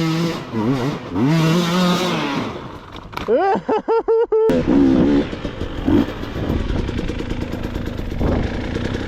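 Enduro dirt bike engines revving, the pitch rising and falling in quick blips. About four and a half seconds in, the sound changes abruptly to a bike running steadily along the trail.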